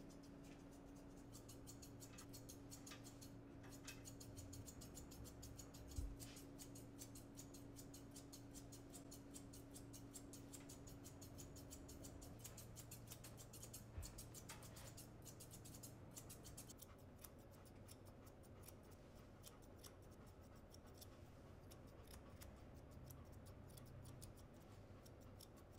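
Pet grooming shears, including thinning shears, snipping rapidly and faintly through a golden retriever's coat as its fur is trimmed. Two soft knocks come about six and fourteen seconds in.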